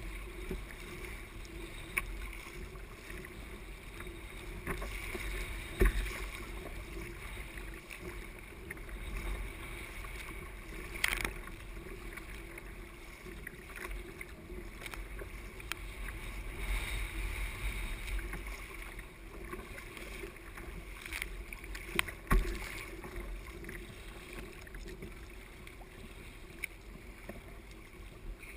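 Double-bladed paddle strokes of a sit-on-top fishing kayak, the blades splashing through choppy water with wind rumbling on the microphone. A few sharp knocks stand out, about six, eleven and twenty-two seconds in.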